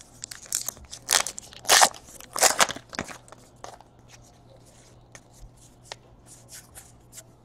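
2017 Topps Allen & Ginter baseball cards being handled and flipped through by hand, with a few louder crinkles in the first three seconds, then light scattered card clicks.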